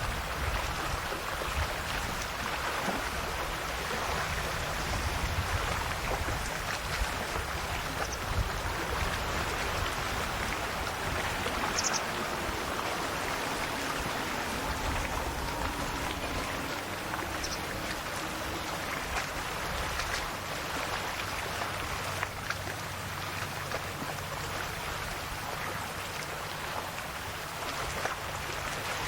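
Calm sea: small waves washing and lapping against the shore in a steady, continuous wash.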